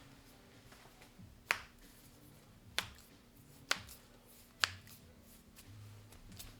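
Four sharp joint cracks from a chiropractic adjustment, about one to one and a half seconds apart, each a short snap-like pop.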